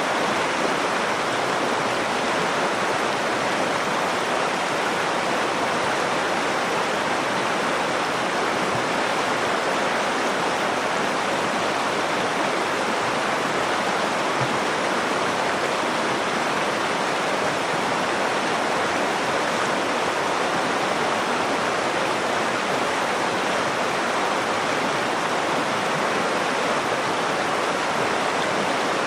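Nakdong River water flowing steadily over rocks, an even rushing of running river water.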